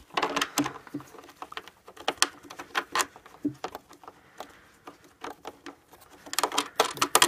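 Scattered clicks and knocks of stand parts being handled, thickening into a quick run of clicks near the end: the cable box of a keyboard stand being set on its brackets and knob bolts fitted.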